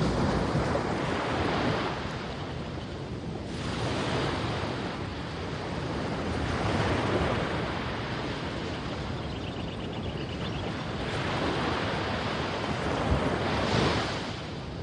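Ocean surf breaking and washing up a sandy beach, the rush of water swelling and easing every few seconds.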